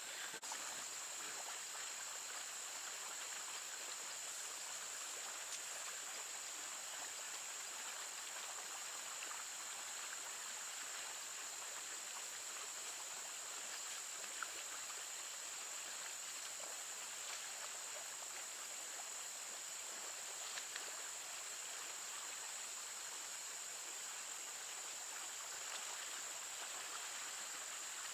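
Stream water running steadily, with a steady high-pitched insect buzz over it and a couple of faint ticks.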